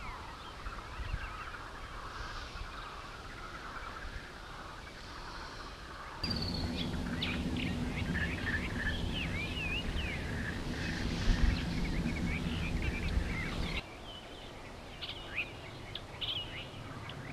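Outdoor ambience of many small birds chirping and singing, in three cut-together takes; in the middle take, from about six to fourteen seconds in, the birdsong is denser and a louder, steady low hum runs underneath.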